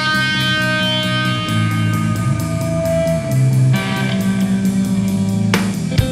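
Guitar-led rock song in an instrumental stretch: electric guitar holding long, ringing notes, with a few drum hits near the end.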